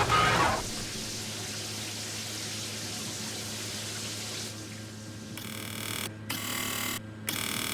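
Samsung washing machine: a motor whine cuts off about half a second in, then water runs steadily into the machine. In the last few seconds the rushing gets louder and stops briefly about once a second.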